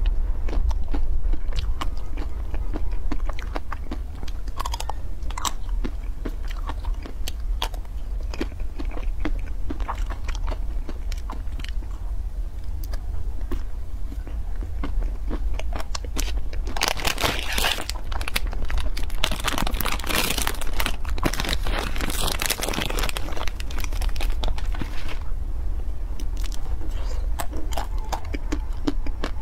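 Close-miked biting, chewing and crunching of ice cream bars, ending on a chocolate-and-nut-coated bar, with many short sharp crunches. A denser, louder stretch of crackling comes in the second half, over a steady low hum.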